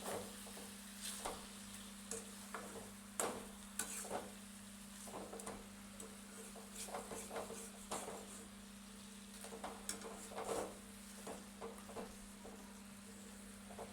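Chicken frying in a pan, with a faint sizzle and irregular scrapes and clicks of a spatula stirring it, over a steady low hum.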